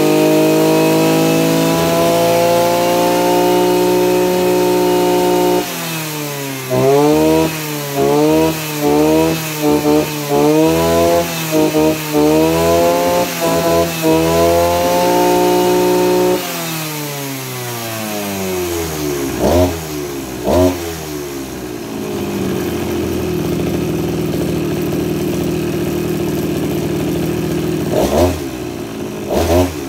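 Maruyama BC32A brush cutter's 32cc two-stroke engine held at high revs, then blipped up and down about once a second for around ten seconds before dropping back to idle. Two more quick blips, a steady idle, and a few more blips near the end.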